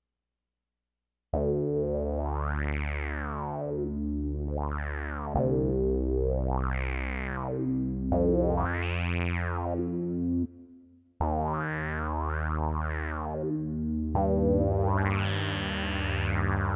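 Roland Sound Canvas SC-55 synthesizer playing sustained chords while an expression pedal sweeps its TVF filter cutoff, so the sound repeatedly opens bright and closes dull again. The chords come in about a second in, break off briefly about ten seconds in, and new chords follow with quicker sweeps.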